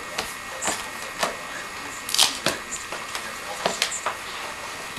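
Irregular taps and clicks of puzzle pieces and board books being handled on a table, the sharpest about two seconds in.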